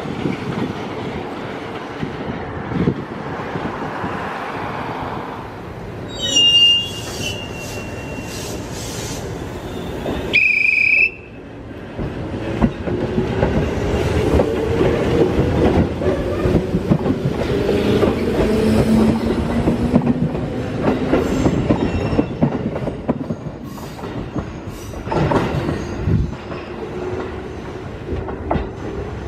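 JR East 205 series 3100-subseries electric trains on the rails. One runs past with wheels clattering, and a high tone sounds twice about six and ten seconds in. Then another pulls away with a motor whine that rises slowly in pitch as it speeds up, and a third is heard near the end.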